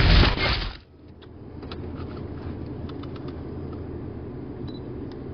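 Music cuts off about a second in, giving way to a vehicle engine idling with a steady low rumble and a few faint clicks.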